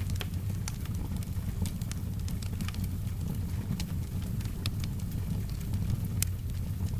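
Wood fire crackling, with irregular sharp pops scattered through a steady low rumble, and soft rain in the background.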